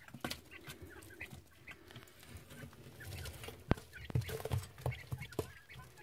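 Three-week-old quail chicks faintly peeping and rustling about in wood shavings, with a sharp click about three and a half seconds in.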